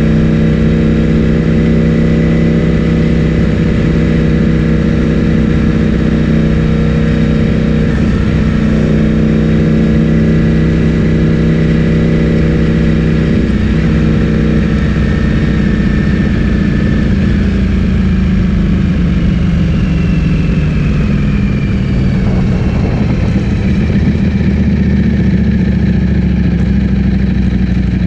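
Ducati Streetfighter V4S's V4 engine breathing through an Akrapovic full-system exhaust, running steadily at a fairly constant speed, its pitch drifting slowly down over the stretch.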